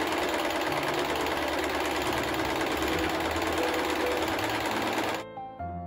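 Electric sewing machine running at a steady speed, stitching a small hem in a shirt, and stopping about a second before the end.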